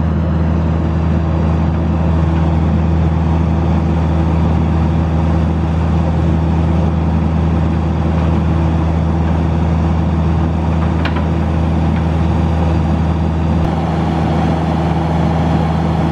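A John Deere 50G compact excavator's diesel engine running with a steady, even hum as the machine lifts a load with its arm.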